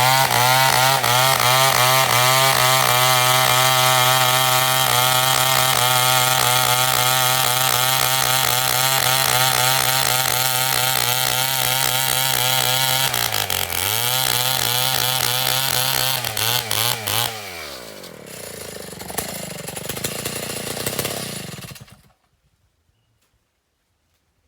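Chainsaw running at high revs, its pitch dipping briefly about halfway through. Near the end the revs fall away and it runs lower and quieter for a few seconds before the sound cuts off.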